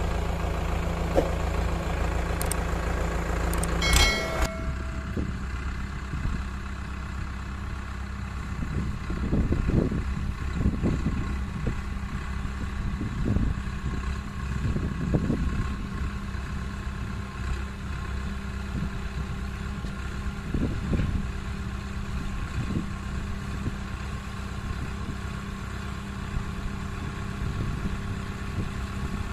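Powertrac Euro 55 tractor's diesel engine running as the tractor creeps over rough dirt, with swells in engine noise every few seconds. The sound changes abruptly about four seconds in.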